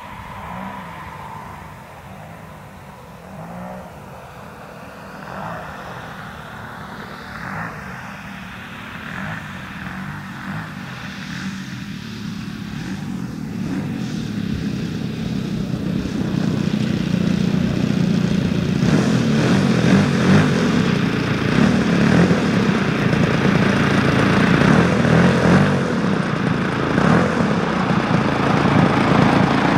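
The twin-cylinder DA100 boxer two-stroke petrol engine of a large RC model plane runs at low throttle, faint at first while the plane is on approach. Over the second half it grows steadily louder as the plane lands and taxis up close.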